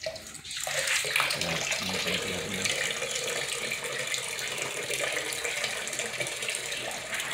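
Water from a garden hose flushing through a motorcycle radiator and pouring out of the open coolant outlet into a bucket of old coolant: a steady splashing rush that starts about a second in.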